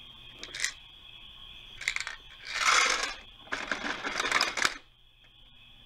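A small plastic Playmobil toy wheelie bin clicking on the garbage truck's tipping lifter. Then, a couple of seconds in, it empties: the toy scrap-metal pieces inside pour out in a loud rush and rattle down into the truck's hopper for about another second.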